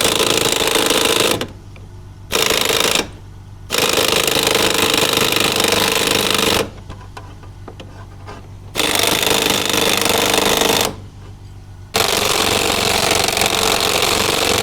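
Pneumatic impact wrench with a 24 mm impact socket hammering on a Jaguar XK8 top wishbone's fulcrum pin bolt, in five bursts of one to three seconds with short pauses between. The bolt is binding in the wishbone bushes and does not come free.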